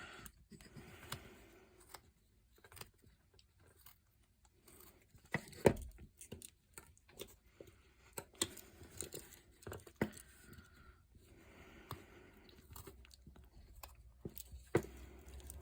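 Swiss Army knife blade cutting and paring basswood in short, irregular strokes: quiet crunching slices and small clicks, with one sharper knock about five and a half seconds in.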